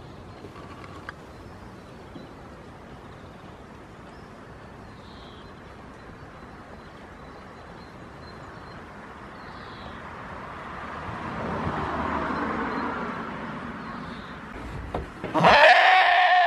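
A goat bleats once, loudly, near the end. Before it there is a quiet outdoor background with a broad swell of noise that rises and falls about the middle.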